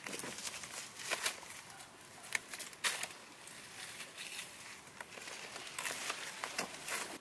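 Rustling and handling of a woven bamboo basket and its plastic carrying straps, with a few sharp crackles, then footsteps of rubber boots on dry leaves and grass.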